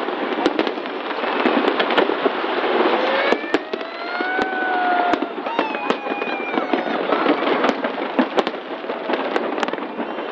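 A fireworks display: a dense, continuous crackle with many sharp bangs, and a few rising whistles about a third of the way in.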